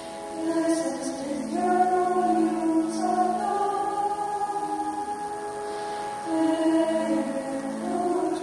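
Background music: a choir singing slowly in long held notes, several voices together.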